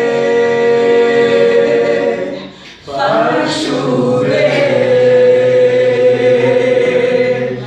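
Vocal group singing unaccompanied, holding out long chords on sustained vowels. There are two held chords, with a brief break for breath about two and a half seconds in.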